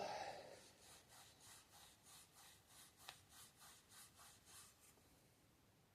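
Faint, rhythmic rubbing by hand on a car's gear-lever part, about three strokes a second, stopping about four and a half seconds in, with one small click near the middle.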